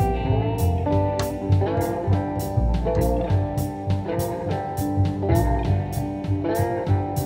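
Music: a guitar plays over bass and a steady drum beat of about two strokes a second.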